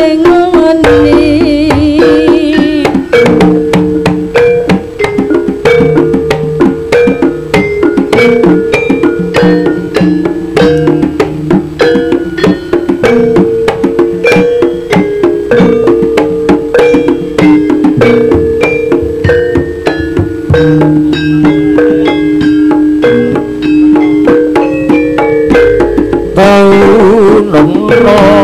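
Live East Javanese jaranan gamelan music: kendang hand drums beat a fast, dense rhythm over ringing metal gong-chime and metallophone notes. A wavering higher melody line comes in briefly at the start and again near the end.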